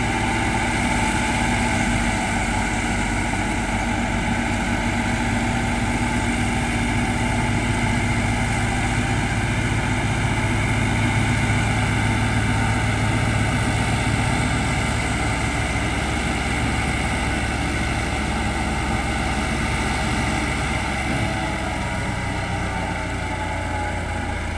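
Massey Ferguson 385 tractor's four-cylinder diesel running steadily under load, driving a PTO-powered wheat straw reaper that chops stubble and blows it into a trailer. The steady drone eases slightly near the end.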